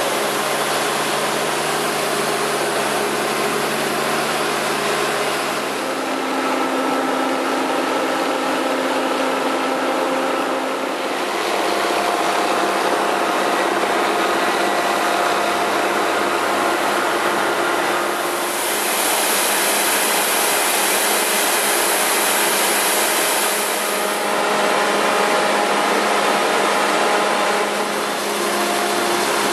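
Fan-type snowmaking guns blowing snow: a steady, loud rushing hiss with faint steady whining tones, its tone shifting from shot to shot. For the first few seconds a snow groomer's engine drones low beneath it.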